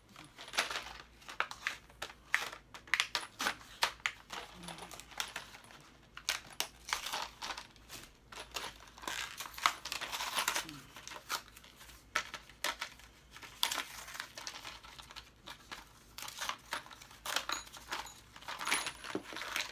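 Packaging crinkling and tearing as vacuum cleaner parts are unwrapped by hand, with scattered sharp clicks and knocks of parts being handled.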